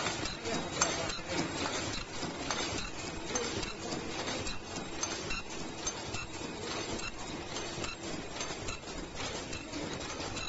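Automatic three-layer disposable face mask production machine running: rapid, irregular mechanical clicking and clattering of its moving parts over a steady hum.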